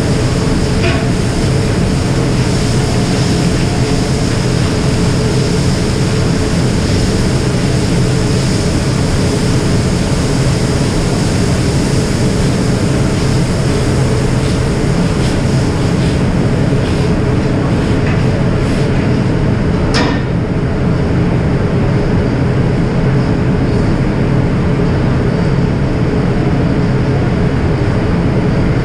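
Commercial kitchen exhaust hood running over a large round flat-top grill: a steady, loud rumble, with a few metal clicks and taps about two-thirds through, one sharper than the rest.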